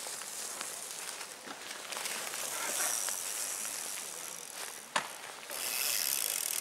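Mountain bikes riding past on a dirt track strewn with dry leaves: tyre and leaf noise as a steady hiss, with a sharp click about five seconds in, after which the hiss grows louder as another rider passes close.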